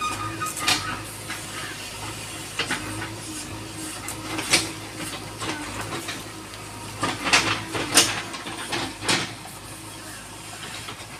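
JCB 3DX backhoe loader's diesel engine running steadily while its backhoe digs, a low hum with a hiss over it. About six sharp knocks come at irregular intervals, the loudest about eight seconds in.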